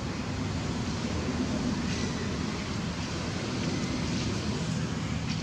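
Steady low background rumble with no distinct event and no monkey calls.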